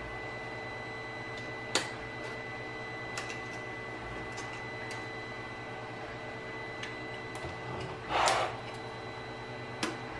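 Hand disassembly of a chartplotter's internals: scattered small clicks and taps of a screwdriver and parts, with a louder scrape and knock about eight seconds in as the metal chassis is moved, over a steady background hum.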